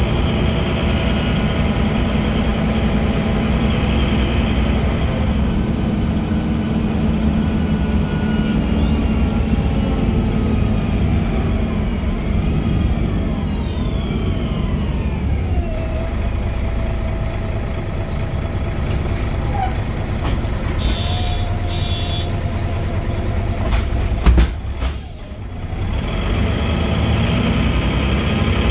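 Inside a 2001 MAN NG313 articulated city bus, its MAN D2866 diesel engine running, with a whine that climbs about a third of the way in and then slowly falls. A sharp knock comes near the end, and the noise briefly drops right after it.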